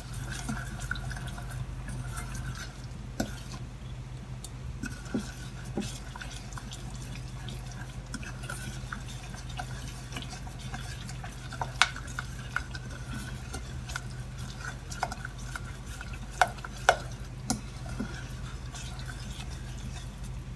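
Wooden spoon stirring melted butter and sugar in a stainless steel saucepan, with scattered taps and scrapes against the pan, a few sharper knocks in the second half, while the sugar melts into the butter. A steady low hum runs underneath.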